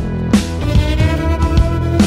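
Background music: held instrumental notes over a drum beat.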